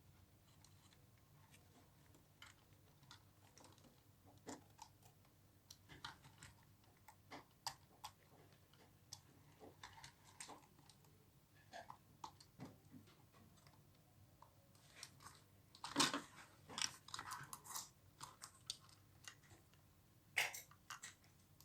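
Faint scattered clicks and crinkling of plastic parts and packaging being handled, with a busier run of clicks about sixteen seconds in.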